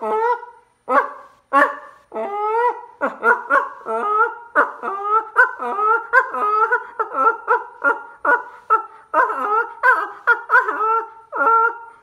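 A man mouth-calling Canada geese with his hands cupped around his mouth, using no call: a string of goose honks and clucks. It starts as a few spaced honks and about three seconds in speeds up into a fast run of short clucks, several a second.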